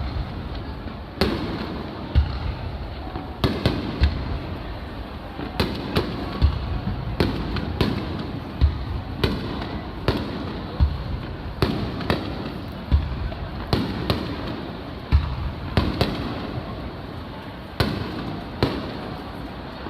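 Aerial fireworks shells bursting one after another, sharp bangs with deep booms at an irregular pace of roughly one a second.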